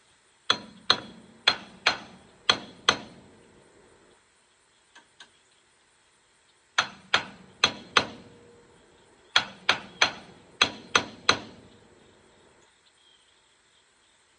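Hammer blows on metal, each a sharp ringing strike, in three rounds of about two strikes a second: six strikes, a pause, four more, then six more.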